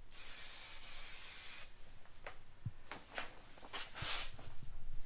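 Aerosol spray paint can spraying: a steady hiss that stops about a second and a half in, then a few light knocks and a thump, and a second short spray burst near the end.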